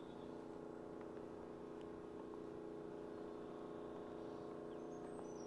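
Faint steady hum with several steady tones, like a distant engine or motor running, with no distinct events.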